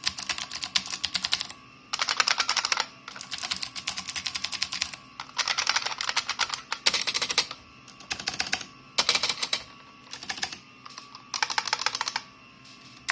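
Rapid typing on clicky mechanical keyboards in bursts of about a second each, with short pauses between. The bursts plausibly alternate between an IBM Model M's buckling-spring keys and a Tesoro Durandal Ultimate's Cherry MX Blue switches.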